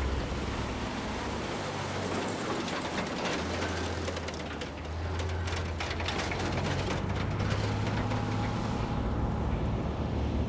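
Vehicles driving on a road: a steady low engine and road drone under rushing wind noise, with scattered crackles in the middle.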